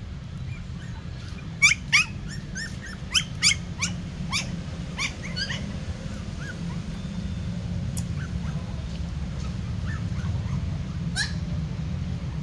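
Puppies giving a quick run of short, high-pitched yelps and squeaks in the first few seconds, with one more near the end, over a steady low hum.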